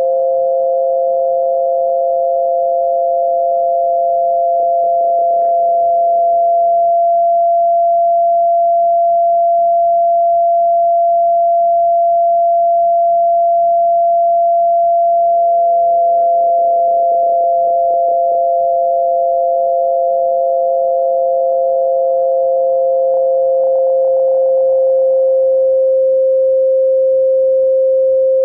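Steady pure sine tones for tinnitus masking: two tones a little apart in pitch. The lower one fades out about six seconds in and comes back about nine seconds later, and the higher one fades out near the end.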